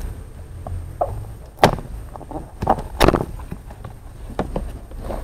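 Cardboard box handled and opened by gloved hands: a series of knocks and scuffs, the sharpest about a second and a half in and again at three seconds, over a low steady rumble.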